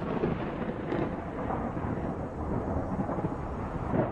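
Thunder rumbling in a lightning storm: a low rolling noise that swells and fades, growing stronger near the end.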